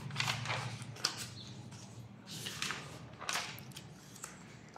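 Paper pages of a textbook being turned and handled, a handful of short rustles.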